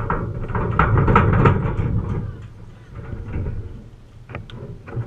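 Low, fluctuating rumble of wind buffeting an outdoor microphone, loudest in the first two seconds, with a few sharp clicks near the end.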